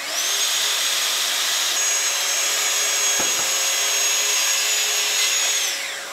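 Festool TS 55 plunge-cut track saw spinning up with a rising whine, cutting through an 18 mm panel along its guide rail for about five seconds, then winding down with a falling whine near the end. A dust extractor hisses steadily underneath and keeps running as the saw winds down.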